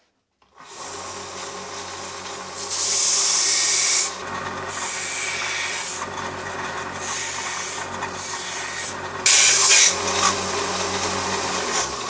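Small bench belt sander starting up about a second in and running with a steady motor hum while the edge of a plastic sheet is pressed against the belt to bevel it. The grinding hiss swells loudest twice, about three seconds in and again just before ten seconds.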